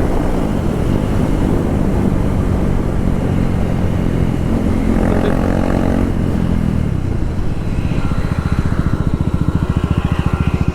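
A KTM Duke 390's single-cylinder engine running with its stock silencer removed while being ridden. In the second half the revs drop, and its individual firing pulses come through as a fast, even beat.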